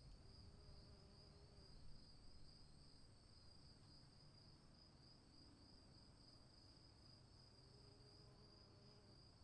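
Faint, steady chirring of crickets as the storm winds down, with a low rumble dying away in the first couple of seconds.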